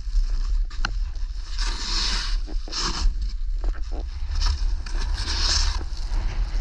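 Wind buffeting the microphone as a steady low rumble, with snow hissing under the edges in about four sliding turns, each a swell of hiss lasting about half a second.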